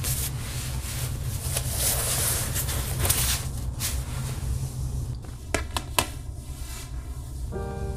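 A paper notebook slid across a desk with a rustling scrape, then a few light clicks as a plastic pen is set down on its cover. Piano music comes in near the end, over a steady low hum.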